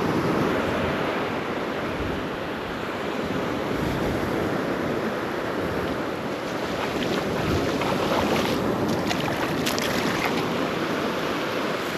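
Surf breaking and washing up on the beach, with wind buffeting the microphone.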